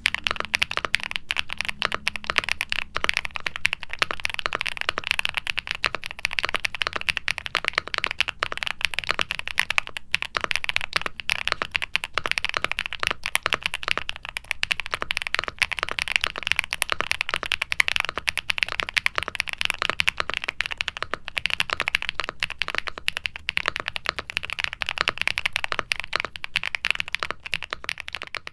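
Continuous fast typing on an Akko MU01 mechanical keyboard with a walnut wood case, FR4 plate, foam dampening, Tecsee Neapolitan Ice Cream tactile switches and GMK double-shot ABS keycaps. A dense stream of keystroke clacks, bright but with a hollow, thuddy wooden-case character, with a brief pause about ten seconds in.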